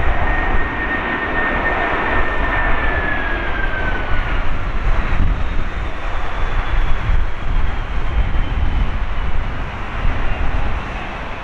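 Airbus A330-300's Rolls-Royce Trent 700 jet engines during the landing rollout: a loud rushing roar over a low rumble, with a high engine whine that falls in pitch about three to four seconds in as the engines spool down. The roar eases near the end.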